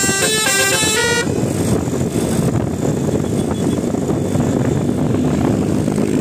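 Bus 'telolet' multi-tone melody horn playing a quick run of stepped notes that cuts off about a second in, followed by loud steady rushing vehicle noise. Near the end low horn notes start to come in again.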